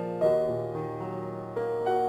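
Slow, soft piano background music, with sustained chords: a new chord is struck about a quarter second in and another near the end.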